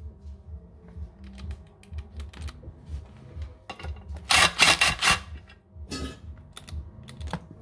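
Hand tools working on the bolts of a stock car clutch: a dense run of rapid metallic clicks about four seconds in, lasting about a second and a half, with scattered single clicks and knocks around it.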